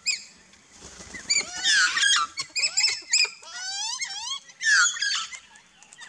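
Mixed calls of Australian backyard birds: overlapping short squawks and chirps, with a quick run of rising chirps about halfway through.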